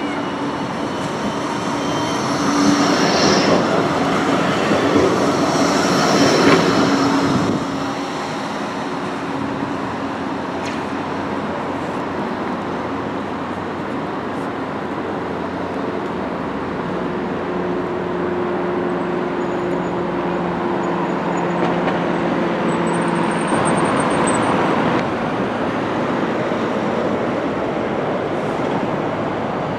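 Bombardier Flexity 2 tram passing close by on street track and running away: motor whine and steel wheels on rail, loudest a few seconds in, fading to a steadier hum under road traffic.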